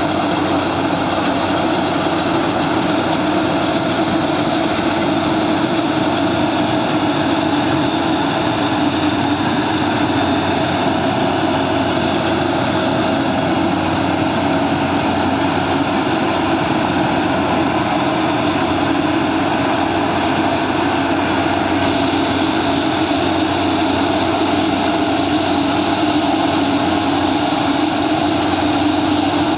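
Yanmar YH850 combine harvester's diesel engine and threshing machinery running steadily while it harvests rice. A higher rushing hiss grows stronger about two-thirds of the way through.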